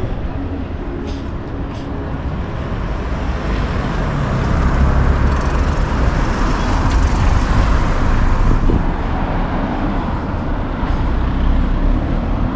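Road traffic: a motor vehicle running close by, its rumble swelling through the middle and easing off again.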